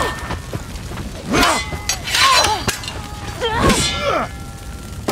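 Sound of a screen fight scene: combatants' loud cries and grunts, three strong ones spaced about a second apart, with crashes and thuds of the fighting mixed in.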